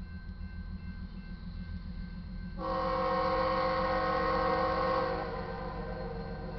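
Locomotive air horn on a GE ES44C4 diesel locomotive, BNSF 8225, sounding one long chord of several notes for about two and a half seconds, starting a little past two seconds in. It is the train's warning signal for the grade crossing ahead. A steady low rumble runs underneath.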